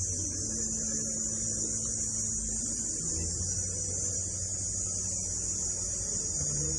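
Cicada singing: a steady, unbroken high-pitched buzz.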